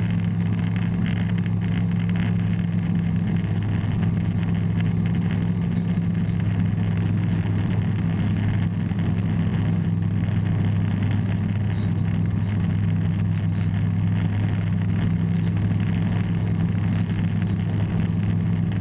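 Bristell light aircraft's engine and propeller in cruise, a steady unbroken drone.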